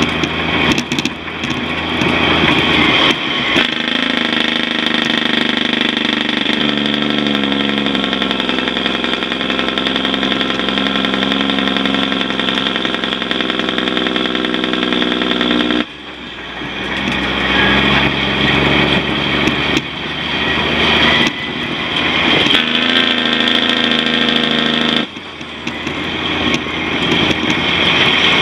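Diesel engine of a loaded log truck running under load on the road, a steady engine drone whose pitch steps up or down several times, with brief dips in loudness as the note changes.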